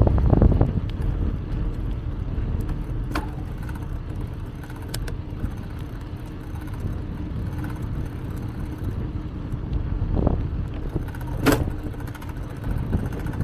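Riding noise picked up by a handlebar-mounted camera on a moving bicycle: a steady low rumble of wind and tyres, with a few sharp clicks and rattles, the loudest about eleven and a half seconds in.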